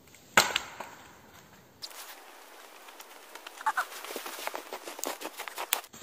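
A dry dead branch cracks sharply once. Then footsteps crunch through snow with the crackle of dead branches being carried, the steps getting louder and closer over the last two seconds.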